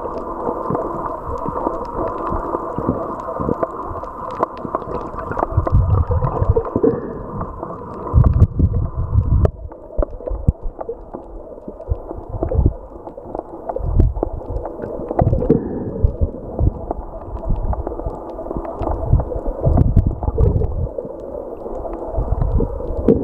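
Muffled underwater sound picked up by a submerged camera: water sloshing and gurgling under a steady low hum, with irregular deep rumbling surges and scattered small clicks.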